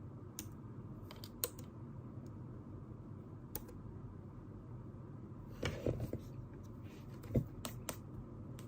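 Scattered light clicks and taps at a desk, about a dozen at uneven intervals, with a short cluster around six seconds in and the sharpest click a little after seven seconds, over a steady low room hum.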